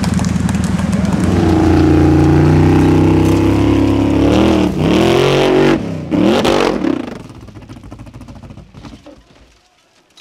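Off-road buggy's engine running hard, then revving in sharp rises and falls in pitch several times as the buggy tumbles down the sand slope, before the sound falls away to faint.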